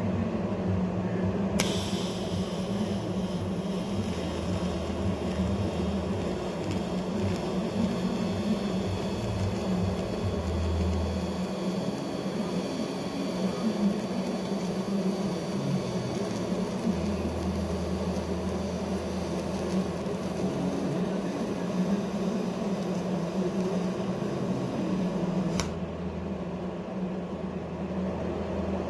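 TIG welding arc on stainless steel: the arc strikes with a sharp click about a second and a half in, hisses steadily, and cuts off with another click about three seconds before the end, over a steady machine hum.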